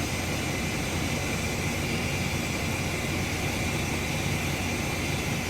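Semi truck's diesel engine idling steadily, with a steady hiss of compressed air from the truck's air supply filling the freshly plugged 11R24.5 tire.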